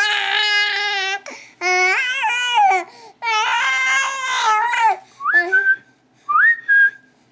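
Infant vocalizing in long, wavering, wail-like tones: three drawn-out phrases, then two short high squeals that rise in pitch near the end.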